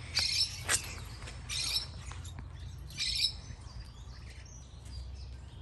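Caged aviary birds chirping: short high calls come three times, about a second and a half apart, with one sharp single note under a second in, over a steady low rumble.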